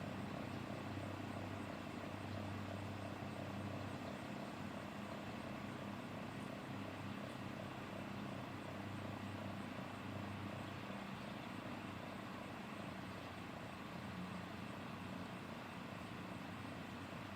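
Federal Signal 3T22 outdoor warning siren sounding faintly, a steady low drone with a fluttering, chopping waver. The siren is known to sound off.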